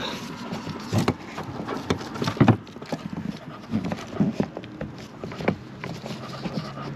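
Irregular clicks and knocks of a plastic trailer-harness connector and its cable being handled and pushed through a rubber grommet in a car's cargo-area floor, the loudest knock about two and a half seconds in.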